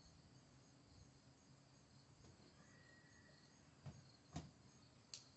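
Near silence with faint insects chirping in a steady, regular high-pitched rhythm. Three short clicks come near the end.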